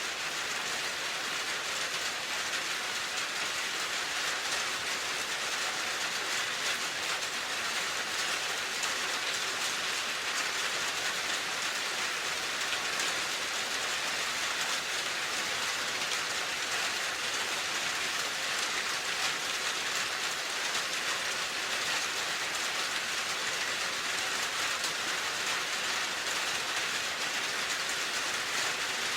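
Steady, even rain falling, a continuous hiss of drops with no breaks or changes.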